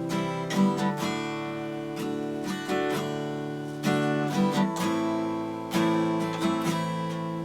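Acoustic guitar music: chords struck every second or so and left to ring.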